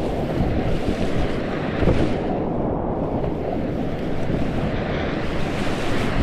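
Whitewater rapids rushing steadily, with wind and water buffeting the microphone into a heavy low rumble.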